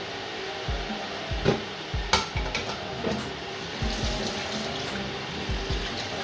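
A wooden spatula knocks a few times against a stainless-steel pot of rice, between about one and a half and three seconds in. Under it runs a steady hiss.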